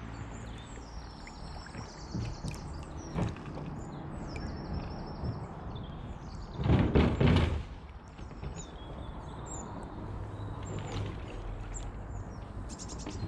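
Small birds chirping and singing throughout, with a brief loud noisy rush lasting about a second, around seven seconds in.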